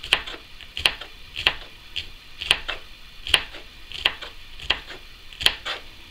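Kitchen knife thinly slicing bitter gourd on a bamboo cutting board: a steady run of sharp knocks of the blade on the board, about one every two-thirds of a second.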